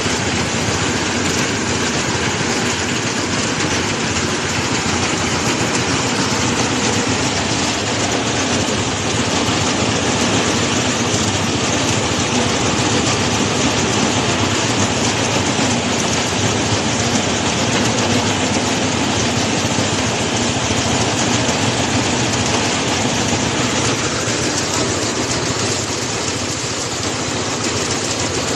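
Rice harvesting machine running steadily under load, a loud, even mechanical noise from its engine and threshing works.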